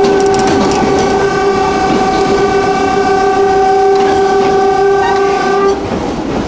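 Heliopolis tram's horn sounding one long steady blast of about five and a half seconds, then cutting off, heard from the driver's cab over the tram's running noise.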